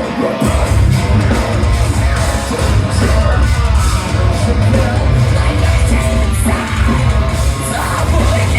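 A rock band playing loud, heavy music live, with shouted vocals over a dense, pounding low end.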